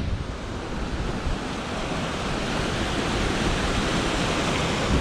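Steady rushing noise of a swift mountain trout stream, with wind buffeting the microphone.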